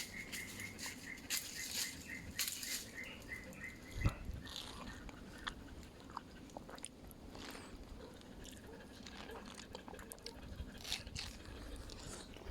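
Mango being bitten and chewed, with wet smacks and crunches. A high, pulsing whine-like tone runs through the first four seconds, and there is a sharp knock at about four seconds.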